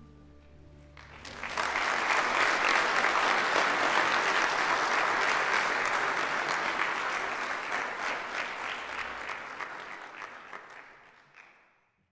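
Audience applauding after a song ends: the final chord rings out briefly, then clapping starts about a second in and fades away near the end.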